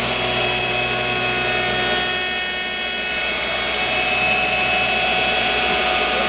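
Lih Woei LH-28 automatic copy shaping machine running, its cutter spindle shaving wooden workpieces with a steady machine whine over the noise of the cut. The level dips slightly about two to three seconds in.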